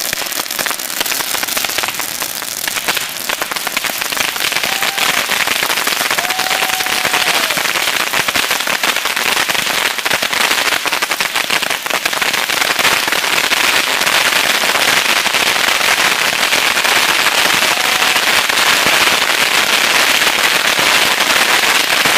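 Hundreds of bottle rockets going off in rapid succession from a homemade gate launcher: a dense, unbroken mass of hissing launches and small pops. It grows steadily louder and thicker as more of the fuse catches.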